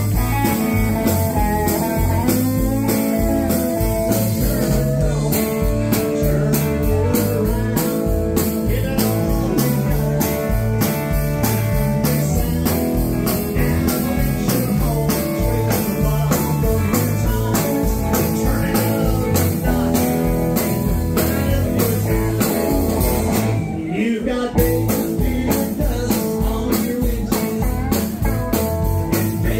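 Live country-blues rock band playing: electric guitar lead over acoustic guitar and drums keeping a steady beat. The band drops back briefly about three-quarters of the way through.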